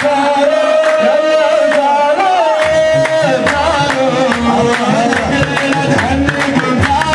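Live Gulf Arabic band song: a male singer on a microphone over hand drums beating a steady rhythm, with a long held note sounding under the voice.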